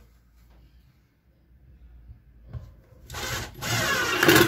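Cordless drill driving a screw through a steel drawer slide into wood, running in two spurts in the second half, the second louder and ending abruptly.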